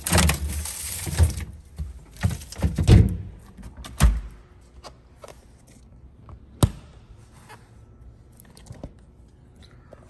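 Samsung 4-Door Flex refrigerator drawer sliding out on its rails, with plastic wrapping rustling. This is followed by a few thunks as the drawer and doors are pushed shut; the sharpest comes about two-thirds of the way in.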